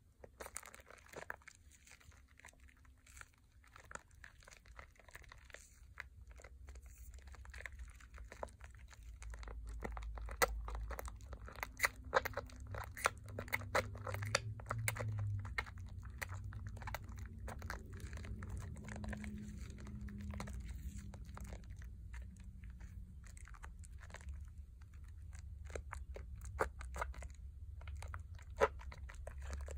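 Wet, thick lather of Pears soap squeezed and kneaded in the hands, the foam squishing and crackling in many small, irregular crackles.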